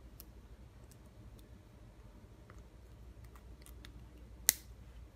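Light plastic clicks and taps as plastic construction sticks and connectors are handled and pushed together, with one sharper snap near the end.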